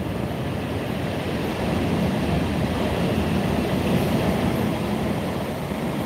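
Stormy Black Sea surf breaking and washing over a pebble beach: a steady low rush that swells about two seconds in and eases near the end.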